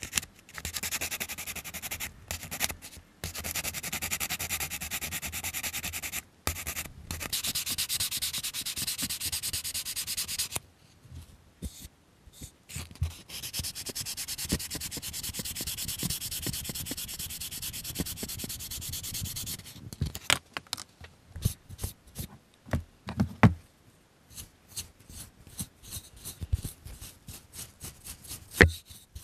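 Sandpaper rubbed in fast back-and-forth strokes over a plastic scale-model part. It comes in two long runs, the first about ten seconds with brief breaks and the second about six seconds after a short pause. After that there are only scattered short scrapes and taps.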